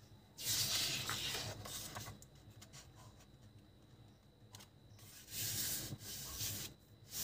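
A sheet of printer paper rustling and sliding on a tabletop under the hands as it is lifted, folded in half and pressed flat, in two main spells of papery hiss: one starting about half a second in, another about five seconds in.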